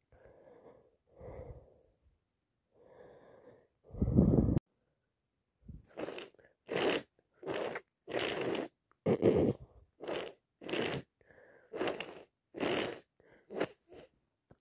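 A person with a heavy head cold breathing in a few times, then one loud sneeze about four seconds in. It is followed by a quick run of about a dozen short, sharp gasping breaths, the build-up of a sneeze.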